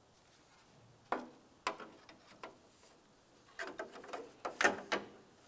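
Ford Flex plastic front grille trim piece being handled and fitted into place, its push clips meeting their slots: a string of irregular sharp plastic clicks and knocks, sparse at first, then bunched together in the second half, the loudest about four and a half seconds in.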